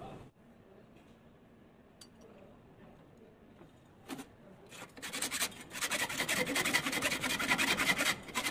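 Hand filing on a steel bracket held in a bench vise: quiet apart from a couple of light knocks, then rapid back-and-forth rasping strokes of metal on metal starting about five seconds in.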